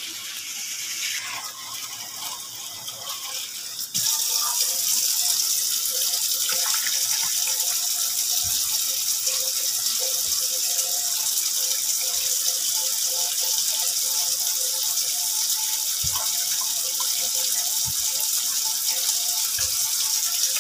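Water poured in a steady stream from a plastic jug into the top opening of an emptied plastic gravity water filter, splashing into its upper chamber. The pour grows suddenly louder about four seconds in.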